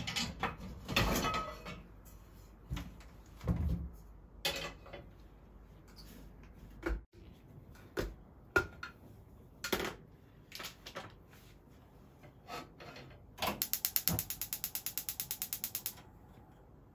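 A gas hob's igniter clicking rapidly, about ten clicks a second for some two and a half seconds near the end, as a burner is lit. Before it, scattered clicks and knocks of a food container's clip-lock lid and the container being handled on a steel counter.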